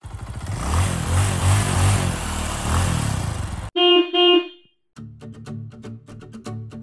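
Loud car engine and road noise that cuts off suddenly, followed by two short car-horn beeps; about five seconds in, plucked-string music with a bass line starts.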